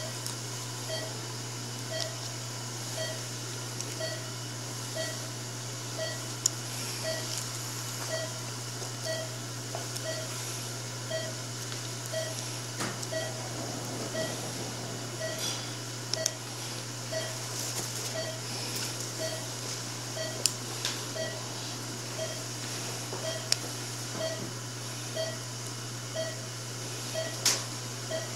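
Operating-room patient monitor beeping about once a second, a short steady tone with each pulse beat from the pulse oximeter, over a steady low hum. A few sharp clicks of surgical instruments or suture handling are scattered through.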